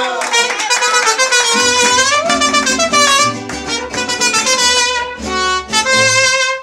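Live mariachi band playing an instrumental passage: trumpets carry the melody over strummed guitars and a stepping bass line.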